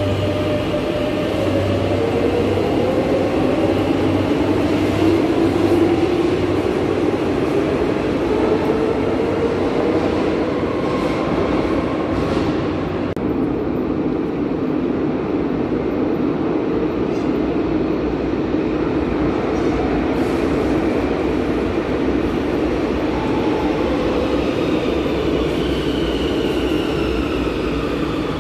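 Madrid Metro trains: one pulls out with its electric traction-motor whine climbing in pitch as it speeds up, over a steady rumble of wheels on rail. Near the end another train comes in, its motor whine falling as it brakes to a stop.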